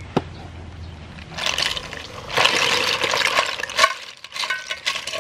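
Boiled sea snails and their cooking water poured from a metal pot into a woven bamboo basket: a knock of the pot just as it begins, then a rush of pouring, splashing water, then the shells clicking and clinking against each other in the basket for the last second or so.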